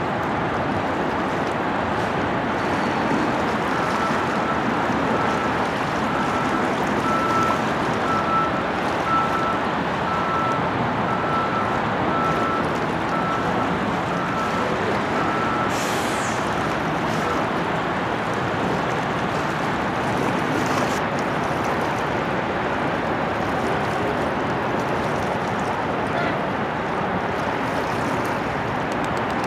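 Steady rush of road traffic. A vehicle's reversing beeper repeats short beeps at one pitch, about one every three-quarters of a second, starting about four seconds in and stopping a little past the middle.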